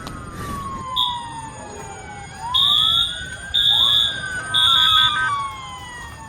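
Several emergency-vehicle sirens wailing at once, their pitches sliding up and down and overlapping. From about a second in, a louder high-pitched electronic alarm beeps about once a second.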